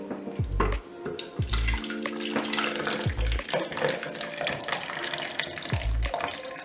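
Thick sauce being poured from a pan into a blender jar, a continuous liquid pour starting about a second and a half in, over background music with a regular bass beat.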